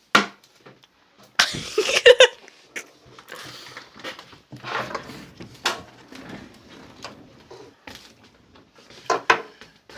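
Knocks, clicks and scraping from a desktop computer case being handled and turned over, with a louder spell of rustling and knocking about a second and a half in.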